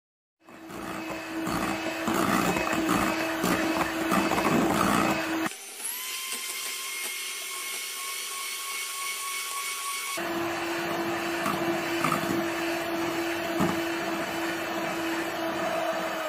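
Electric hand mixer whipping egg whites and sugar into meringue at high speed: a steady motor whine with the beaters rattling in the bowl. For about five seconds in the middle the sound turns thinner, a higher whine without the low rumble.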